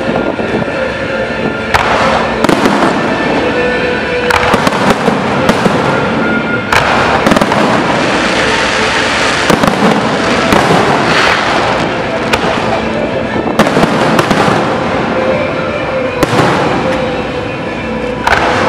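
Fireworks display: aerial shells bursting one after another, a dozen or more sharp bangs about every second or two over continuous crackling.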